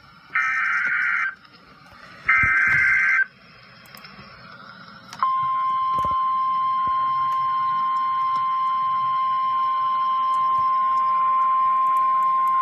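Emergency Alert System header: two one-second bursts of the shrill, warbling data tones that encode the severe thunderstorm warning. A couple of seconds later comes the single steady NOAA Weather Radio 1050 Hz warning alarm tone, over faint radio hiss.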